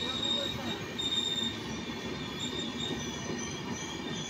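Indian Railways LHB passenger coaches rolling past on the track: a steady rumble with high-pitched wheel squeals that come and go.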